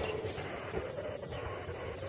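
MIRO robotic manure scraper moving slowly along the floor, its drive giving a steady low hum with a faint wavering whine and a few light clicks.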